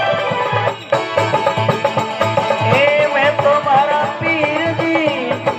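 Rajasthani folk bhajan music: a melody line over a steady drum beat, with a short break in the sound about a second in.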